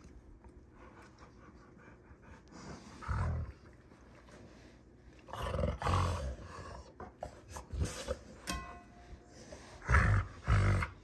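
Two Rottweilers play-fighting, growling at each other in several loud bursts, the loudest near the end.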